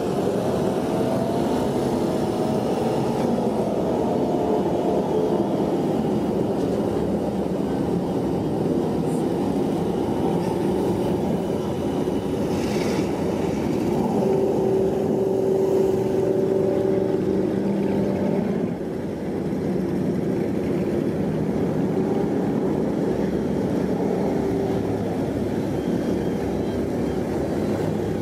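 Engines of several commercial fishing boats running hard close together: a steady low drone, with engine tones that shift in pitch as the boats speed up and turn.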